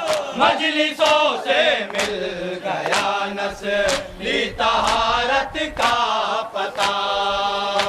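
A group of men chanting a nauha, a Shia Muharram lament, with sharp hand slaps of matam (chest-beating) about once a second.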